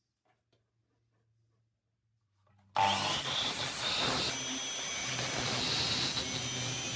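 Near silence, then a little under three seconds in a Bosch PCM 8 S sliding mitre saw is switched on, and the dust-extraction vacuum connected to it starts with it. Both then run steadily, the blade spinning free above the board.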